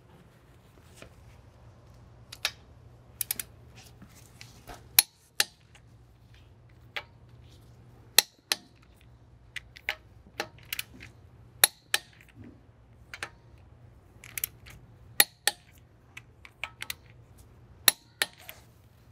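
Click-type torque wrench tightening the five lug bolts of a VW Golf R front wheel. Five sharp clicks about three seconds apart, each the wrench breaking over as a bolt reaches 122 Nm (90 ft-lb), with lighter clicks and taps of the wrench and socket in between.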